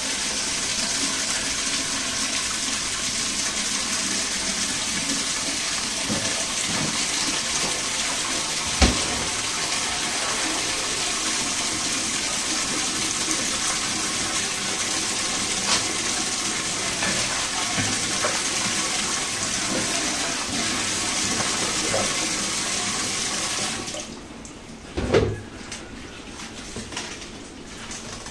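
Water from a tap pouring in a steady stream into a stainless steel pot, a continuous rush that stops about 24 seconds in. A sharp knock comes near the middle, and a thump just after the water stops.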